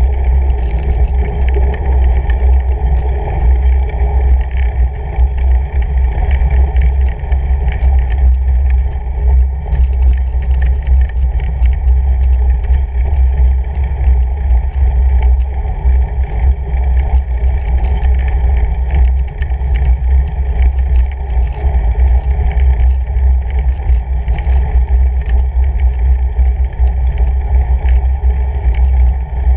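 Steady low rumble of a fatbike's wide tyres rolling over packed snow, the vibration carried into a bike-mounted camera, with many small clicks and rattles scattered through it.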